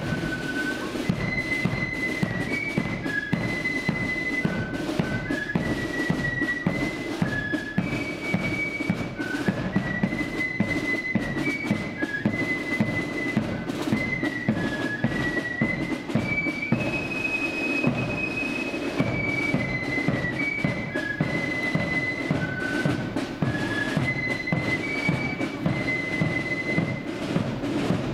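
Marching flute band playing a tune in unison: a high flute melody over steady, driving drums.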